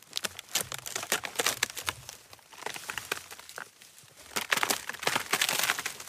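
Dry forest wood and twigs snapping and crackling in a dense run of sharp cracks. It starts suddenly, eases off in the middle, and builds again to its loudest near the end.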